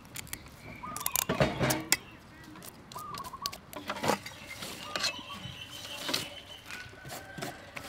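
Scattered sharp clicks and taps as slices of green mango are gathered on a bamboo table and dropped into a metal bowl, while a bird calls briefly every second or two.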